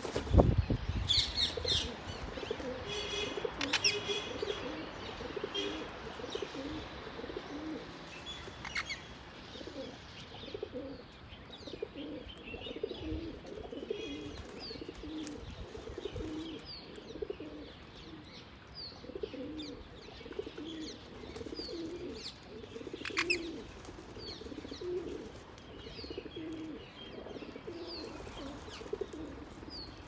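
Pigeons cooing over and over in low, repeated notes, with small birds chirping and twittering high above them. A brief low thump right at the start is the loudest sound, and about 23 seconds in there is one louder high call.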